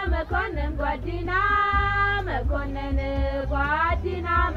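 A song with a high singing voice holding long notes and sliding between them over a steady bass accompaniment.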